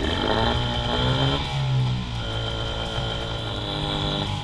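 Small two-stroke outboard motor running just after being started on a little choke, its freshly cleaned carburetor now feeding it. The pitch shifts over the first second and a half, then it runs steadily.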